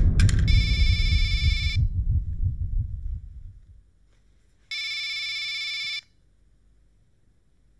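Flip mobile phone ringing with a steady electronic ring, about a second long each time, twice, with about three seconds between rings. Under the first ring a low rumble fades away over the first three seconds.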